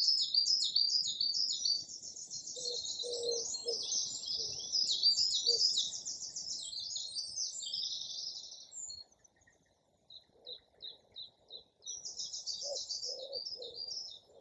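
Woodland songbird singing a long, rapid, high trilling song; after a short gap comes a string of brief single notes, then another trill near the end. Faint low repeated notes sound underneath.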